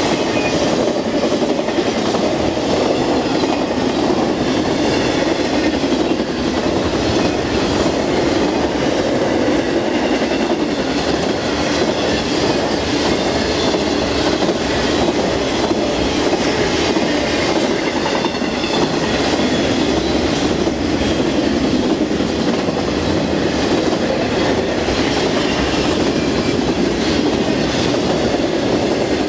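BNSF intermodal freight train's cars, loaded with truck trailers, rolling past at speed: a loud, steady rumble of steel wheels on rail with a rapid clickety-clack over the rail joints and a faint high-pitched wheel whine.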